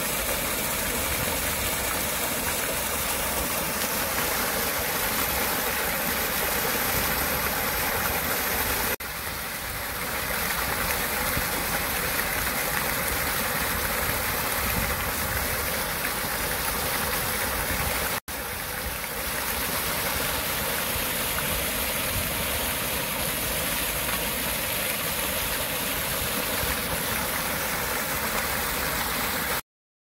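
An artificial rock waterfall and fountain jets splash into a garden pond: a steady rush of falling water. The sound cuts briefly about nine and eighteen seconds in, and stops abruptly just before the end.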